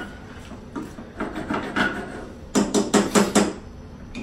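Slotted spatula stirring curry in a metal frying pan, with light clatters against the pan, then a quick run of about six sharp knocks of the spatula against cookware about two and a half seconds in.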